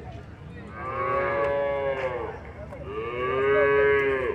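Cattle mooing: two long moos one after the other, each rising and then falling in pitch, the second one louder.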